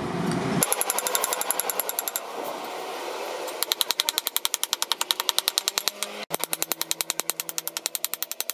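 Hand hammer striking a rusty steel file on a steel anvil block: a quick, even run of metallic blows, several a second, lighter at first and sharper from about halfway through.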